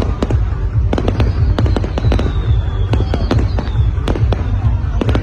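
Fireworks display: a rapid, continuous barrage of sharp bangs and crackles from bursting aerial shells over deep, constant booming. About two seconds in comes a thin whistle that falls slowly in pitch for about two seconds.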